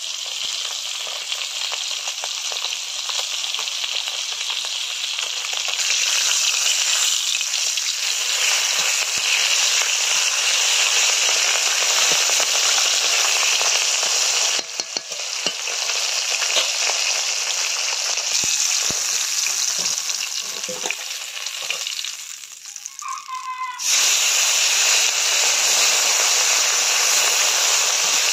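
Whole bata fish sizzling as they fry in hot oil in an iron wok, a steady hiss that grows louder about six seconds in. A metal spatula taps and scrapes a few times as the fish are turned. The sizzle dips briefly about twenty-two seconds in, then comes back.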